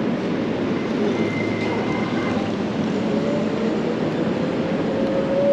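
Steady wind and road noise from riding an electric bike, with a faint whine that slowly rises in pitch over the second half.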